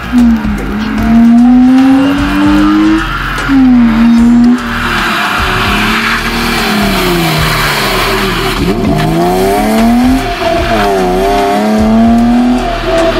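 BMW E36 rally car's engine revving hard, climbing and then dropping sharply again and again as it shifts gear and lifts between cones. Tyre noise rises over it as the car slides on the wet tarmac.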